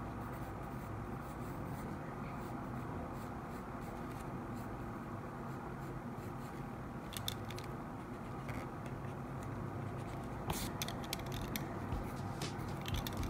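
Pencil drawing on sketchbook paper: light scratchy strokes, thickest in a cluster near the end, over a low steady hum.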